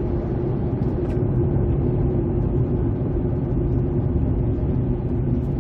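Steady road noise inside a moving car: engine hum and tyre rumble on a wet road, even throughout.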